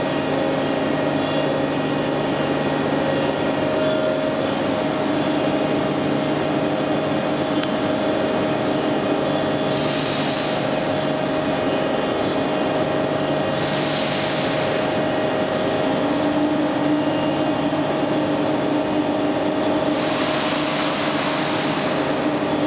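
Scharmann Heavycut 3.2 floor-type boring machine running: a steady mechanical hum with several whining tones, and a further tone joining about two-thirds of the way in. Brief hissing bursts come about ten and fourteen seconds in, and a longer one near the end.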